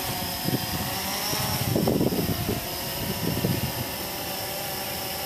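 Blade 350QX quadcopter's four brushless motors and propellers whining steadily as it lifts off and climbs, the pitch rising about a second in. Gusty low rumbling comes and goes in the first few seconds.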